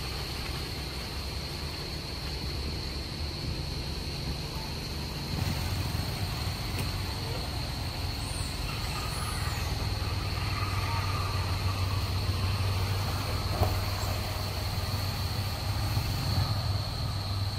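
Forest ambience: a constant high, thin insect drone over a low, engine-like rumble that grows louder about five seconds in, with a few faint high chirps near the middle.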